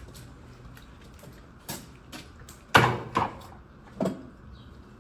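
Four knocks and thumps, the loudest about three seconds in, from the wet/dry shop vacuum's canister and lid being handled while it is emptied of basin water.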